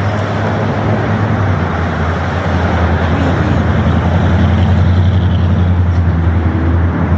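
City street traffic ambience: the steady low hum of a running vehicle engine over the continuous wash of road traffic.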